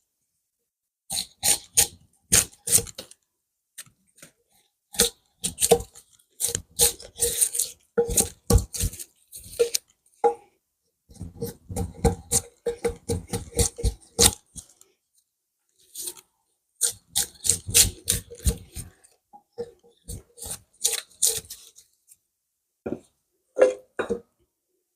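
Hand-forged drawknife pulled along a yew log, peeling the bark off in crackling, tearing strokes. The strokes come in bursts of a few seconds with short pauses between them.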